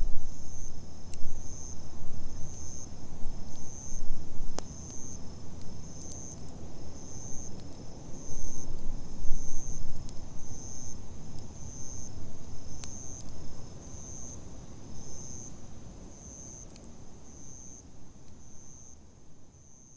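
Wood campfire burning with a low rumble and occasional sharp crackles and pops, dying down toward the end. A cricket chirps steadily in the background, about twice a second.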